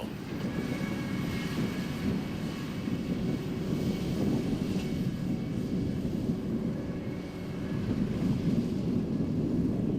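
Vermeer ZR5 1200 self-propelled hay baler running, a steady engine and machinery drone that grows a little louder near the end.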